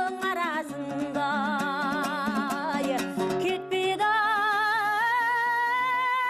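A woman singing a Kazakh folk song with wide vibrato, over fast plucked dombra accompaniment. From about four seconds in she holds long, steady notes.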